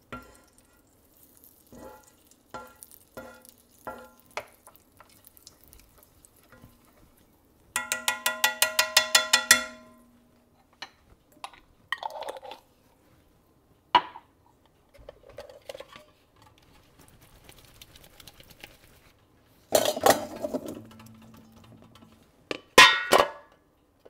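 Stainless steel mixing bowls and a metal utensil clinking and clattering. A quick run of ringing metallic clinks, about seven a second, comes about eight seconds in, with louder clatter near twenty and twenty-three seconds and scattered light taps between.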